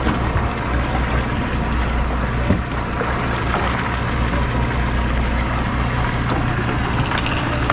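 Sportfishing boat's engine running steadily, a low hum under the rush of water along the hull.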